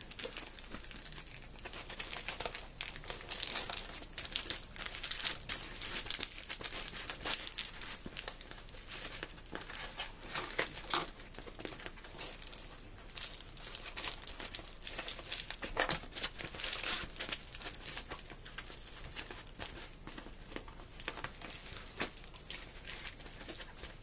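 Tape-wrapped cardboard knee pad being forced into a snug fabric sleeve: irregular crinkling and rustling with sharp crackles.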